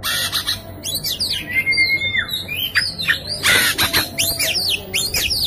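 Oriental magpie-robin in full, insistent song: a loud run of varied whistled notes and quick up-and-down sweeps, with a harsh rasping note about three and a half seconds in.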